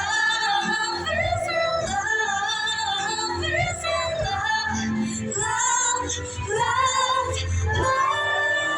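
A woman singing over backing music, holding long notes with vibrato.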